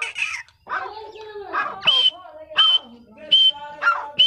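Grey francolins calling: a few varied calls, then a run of short, shrill calls repeated evenly about every two-thirds of a second.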